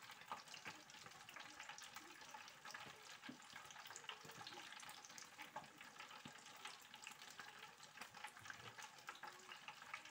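Breaded chicken deep-frying in hot oil: a faint, steady sizzle full of fine crackles.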